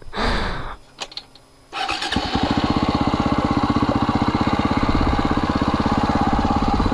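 Single-cylinder dirt bike engine being started: a couple of clicks, then about two seconds in it catches and settles into a steady, evenly pulsing idle.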